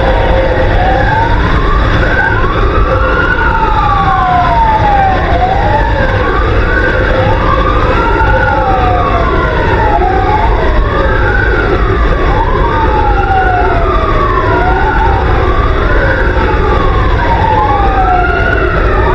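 Fire engine sirens wailing, at least two out of step with each other, each sweeping up quickly and falling slowly every two to three seconds, over the low rumble of the moving truck.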